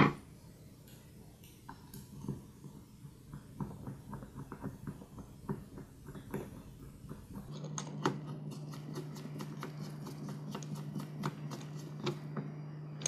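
Hand screwdriver turning the screws that hold the sanding pad onto a random orbital sander: a run of small irregular clicks and scrapes of the tip in the screw heads. A sharp click opens it, and a steady low hum sets in about halfway through.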